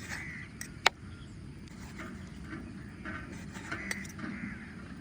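Short, arched animal cries repeating now and then, with one sharp knock about a second in.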